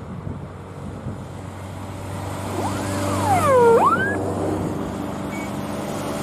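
A vehicle engine running steadily. About three seconds in, a brief pitched tone slides down and then glides back up.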